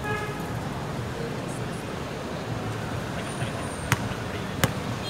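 Two sharp smacks of a volleyball, about three-quarters of a second apart near the end, over a steady low rumble of traffic.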